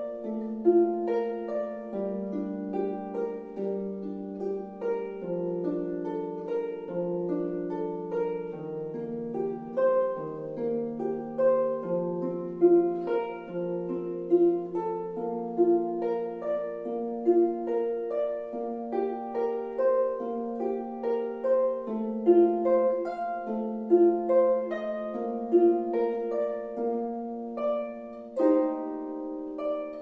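Lever harp played solo: a flowing melody of plucked notes over lower bass notes that are left to ring.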